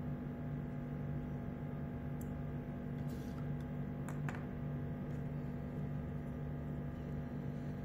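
A few faint clicks and taps from wire ends and small plastic terminal connectors being handled, over a steady low hum.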